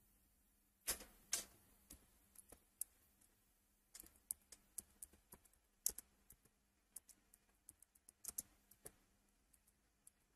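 Faint, irregular clicks and taps of fingers working a device while a Bible passage is looked up. Two louder clicks come about a second in, then lighter ones follow at uneven gaps.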